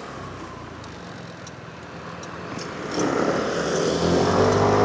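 Motorcycle on the move, wind and road noise rushing over the mic. About three seconds in it grows louder as the engine picks up, its note rising slightly.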